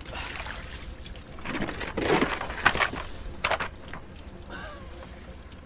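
A net's haul of catch and debris being scraped and picked through on a boat's wet deck: a rustling scrape about two seconds in, then a few sharp clicks and knocks, over a steady low hum.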